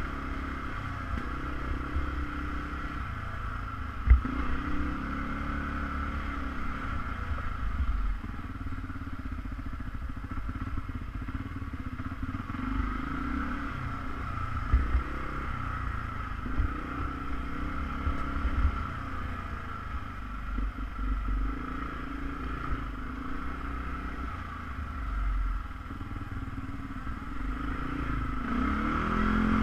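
ATV engine running steadily while riding over rough ground, with a low rumble and occasional knocks and clatter; a sharp thump about four seconds in. Near the end the engine pitch shifts up and down.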